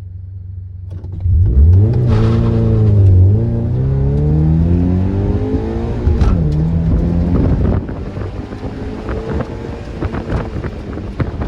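2013 Scion FR-S's 2.0-litre flat-four, through a TRD exhaust, launching hard from the start line and accelerating through the gears, its pitch climbing and dropping at shifts about three and six seconds in. From about eight seconds in, wind buffeting the microphone covers most of the engine.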